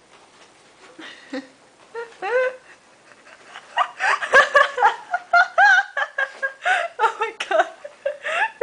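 People laughing and giggling in quick, high bursts, growing louder and more continuous about four seconds in.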